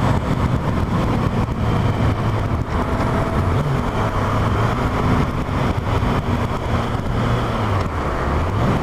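Yamaha FZ8 motorcycle's inline-four engine running steadily while riding. Its note drops and then climbs again near the end.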